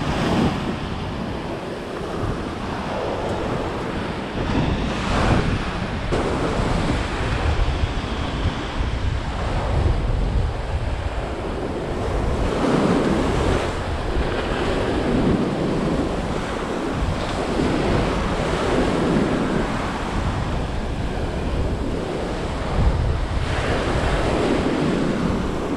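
Ocean surf washing up the sand, swelling and easing every few seconds, with wind buffeting the microphone.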